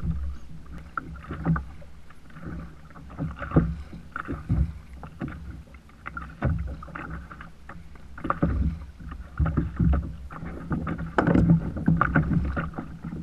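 Choppy sea water slapping and splashing against a plastic kayak hull in irregular knocks, over a low rumble.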